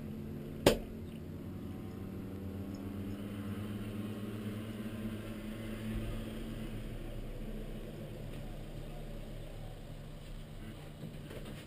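A vehicle engine running steadily at low revs. There is a single click about half a second in.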